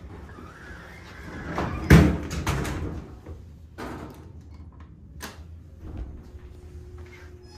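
Center-opening doors of an Otis Elevonic 401 elevator sliding shut and meeting with a loud thud about two seconds in, followed by a few lighter clicks and knocks.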